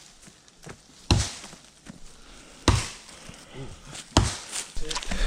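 Chopping into wood with a blade: three sharp strikes about a second and a half apart.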